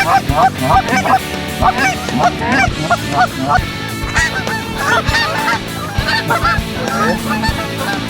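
Canada goose honks and clucks, many short calls in quick succession, rapid and regular at first, then more scattered and overlapping.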